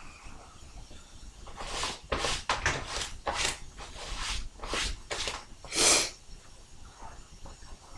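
A person snorting and sneezing: a quick run of about a dozen sharp nasal bursts starting about two seconds in, ending with the loudest burst near six seconds in.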